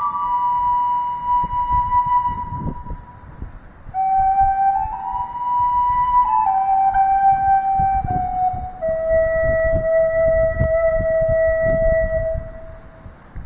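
A slow flute melody of long held notes, over gusts of wind buffeting the microphone. The flute stops near the end, leaving the wind.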